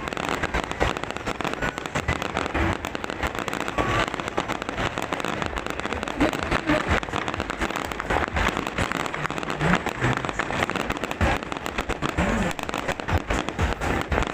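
Fireworks going off without a break: a dense, continuous crackle of many small bangs, with a murmur of voices underneath.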